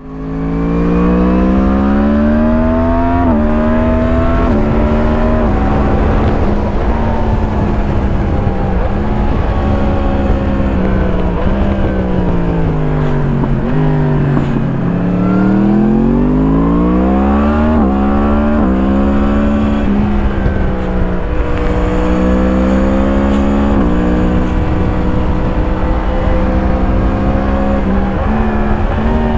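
2017 Yamaha MT-10's crossplane inline-four through an Akrapovič slip-on exhaust, heard from the rider's seat under hard acceleration. The pitch climbs and drops sharply at three quick upshifts in the first six seconds, then holds steady. It falls away as the bike slows around the middle, then rises again through more upshifts, with wind rushing underneath.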